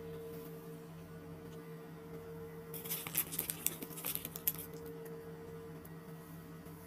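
A run of light clicks and taps lasting about two seconds, starting about three seconds in, over a steady low hum.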